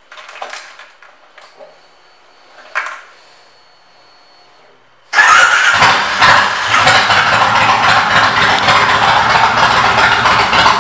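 Kawasaki Vulcan 1600 Mean Streak's V-twin with Vance & Hines pipes: a few small clicks, then about five seconds in the engine starts suddenly and runs loudly.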